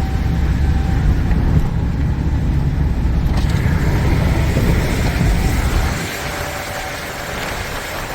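Steady low mechanical rumble, which drops in level about six seconds in.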